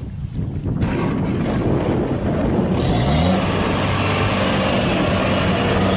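Kubota DC-70 rice combine harvester's diesel engine revving up under heavy load about halfway through, then holding a steady high speed, as the machine strains to drive its tracks out of deep mud while belching black smoke.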